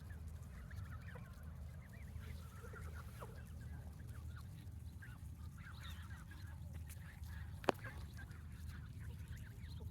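A flock of Canada geese calling softly: many faint, short, wavering calls overlapping over a steady low rumble. A single sharp click comes about three-quarters of the way through.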